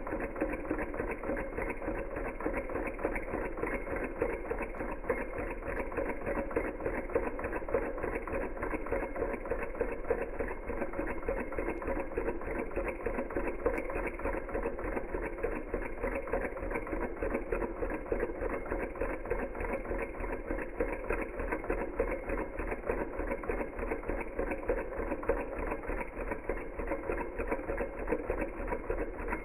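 Small Hog Motor Stirling engine running steadily, with a rapid, even mechanical clatter from its moving parts.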